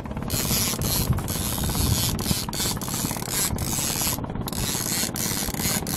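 Small wooden fishing boat's engine running steadily, with wind buffeting the microphone in gusts.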